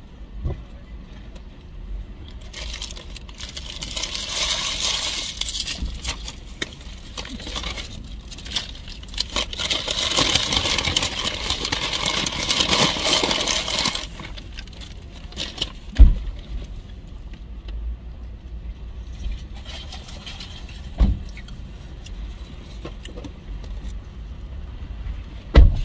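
A paper fast-food bag rustling and crinkling as a hand rummages in it, for about ten seconds, followed by two dull thumps later on, the first of them the loudest sound.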